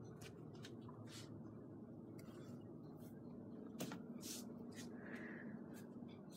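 Quiet room tone: a faint steady low hum with scattered light clicks and rustles, the slightly strongest of them about four seconds in.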